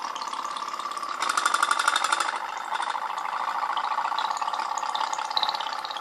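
Tin pop-pop boat running, its candle-heated boiler making a rapid, steady pop-pop as the water inside flashes to steam, jets out of the exhaust tubes and is drawn back in, driving the boat forward. About a second in it turns louder and buzzier for about a second.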